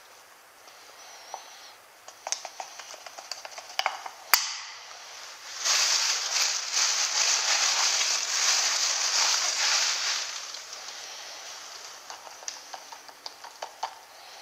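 Plastic bag crinkling and rustling as it is handled, with scattered clicks and one sharp snap about four seconds in. The crinkling is loudest for about four seconds in the middle, then dies down to a few light ticks.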